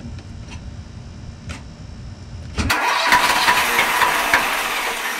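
Three-cylinder Yanmar marine diesel being started after a thermostat refit. A low rumble for the first two and a half seconds, then a sudden jump to the loud, close-up sound of the engine running in its open compartment.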